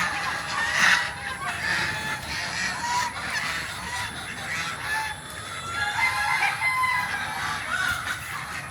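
A flock of free-range chickens calling and clucking, many birds at once with short overlapping calls throughout.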